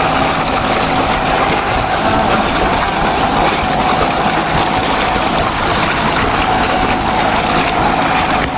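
Sailboat's inboard diesel engine running steadily while motoring, with a dense, steady hiss of wind and water over it.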